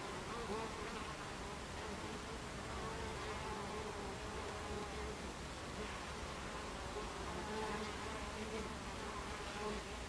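Buckfast honey bees buzzing at the hive entrance as they fly in and out. The buzz is steady and wavers a little in pitch.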